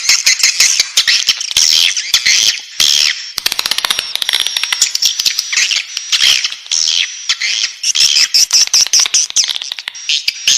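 Swiftlet chicks in the nest chirping continuously: a dense stream of rapid, overlapping high-pitched chirps and clicks.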